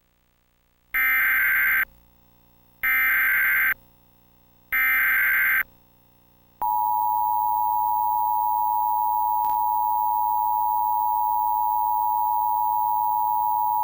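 Emergency Alert System alert: three short, harsh bursts of digital SAME header code about two seconds apart. About six and a half seconds in, the steady two-tone EAS attention signal starts and holds.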